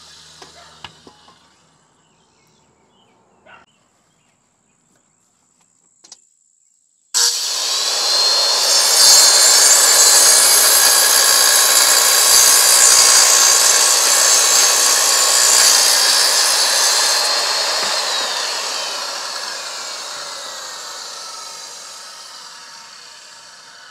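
A few small clicks. Then, about seven seconds in, a mid-1960s Craftsman 7.5-inch corded circular saw (11 amp, 2 horsepower) starts suddenly and cuts through a 2x4, its motor whining at full speed for about ten seconds. It then winds down slowly, falling in pitch as it coasts to a stop.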